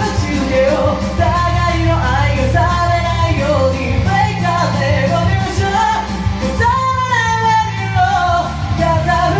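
A singer's voice over a rock band backing track: a sung cover of a Japanese rock song, with a long held note about seven seconds in.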